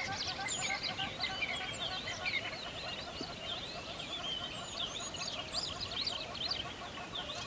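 Dense chorus of many songbirds chirping and twittering, with many short calls overlapping, over a lower, rapidly repeating call.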